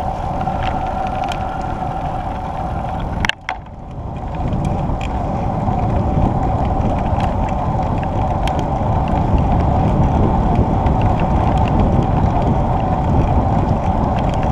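Bicycle riding noise on a smooth paved cycle path: steady wind on the microphone and tyre rumble, with scattered light clicks and rattles. A sharp knock a little over three seconds in, after which the sound drops away suddenly and swells back over about a second.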